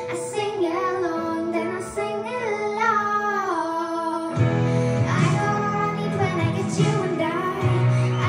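A girl singing a pop ballad with instrumental accompaniment; a heavier bass part comes in about halfway through.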